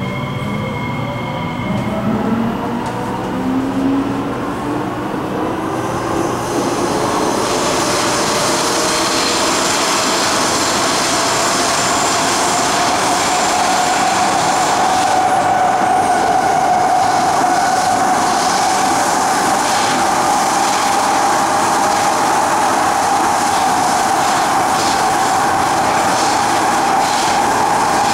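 Kawasaki-Nippon Sharyo C751B metro train heard from inside the carriage as it accelerates. The Fuji Electric IGBT-VVVF traction motors whine in several tones that climb in pitch over the first few seconds, while wheel and running noise builds. About halfway through, one whine settles into a steady tone as the train runs at speed.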